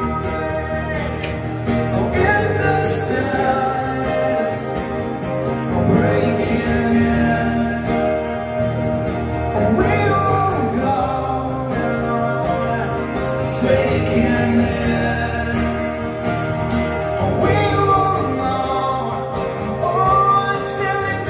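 Two acoustic guitars playing a song together, with a man singing over them.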